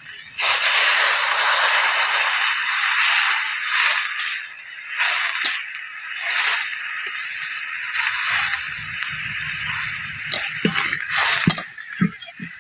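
Water poured into a hot karahi of fried taro and potato: a loud sizzling hiss breaks out suddenly about half a second in and keeps going, fading from about four seconds in. Near the end a ladle stirs the watery curry, with a few knocks against the pan.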